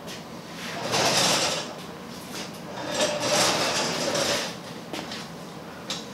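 Antique Singer treadle sewing machine cabinet with a cast-iron base being shifted on a concrete floor: two long scrapes, about a second in and again around three to four seconds in, with a few light knocks between.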